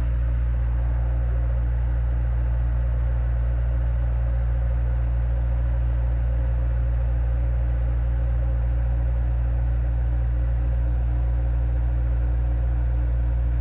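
Tractor engine running steadily, a constant low drone with no change in speed.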